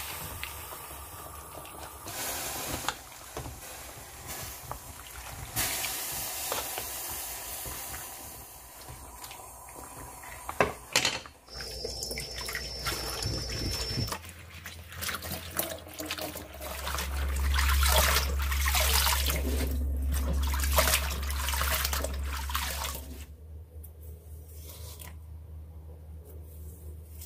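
Blanched butterbur being handled in the kitchen: first leaves in a pan of hot water turned with a wooden spatula, then, after about 14 s, tap water running into a plastic colander in a stainless steel sink as the leaves are rinsed and turned by hand to cool them quickly. The water is loudest from about 16 to 23 s, then stops, leaving quieter handling sounds as the stems are peeled.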